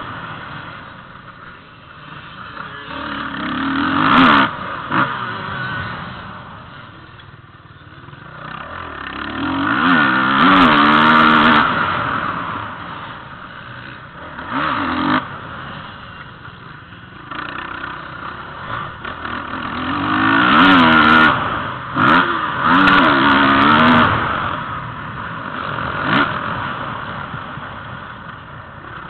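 Motocross bike engine heard from onboard, revving up and easing off over and over as it rides a dirt track. It climbs in pitch through several louder surges, about a third of the way in and twice more past the middle, and drops back between them.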